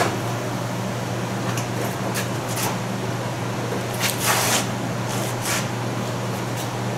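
A plastic body panel being worked loose and handled: several short scrapes and rustles, the longest about four seconds in, over a steady low hum.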